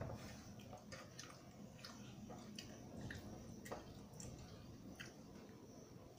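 Faint wet squishing and scattered soft clicks as fingers mix and scoop rice and dal on a steel plate.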